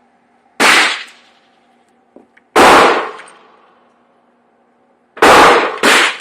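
Four pistol shots from a Glock 30 .45 ACP handgun: three spaced about two seconds apart, the last two in quick succession near the end, each with a short echoing tail.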